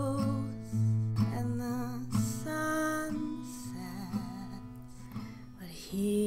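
A slow ballad: a woman singing with acoustic guitar, chords struck about once a second. It goes quieter in the middle and swells again near the end.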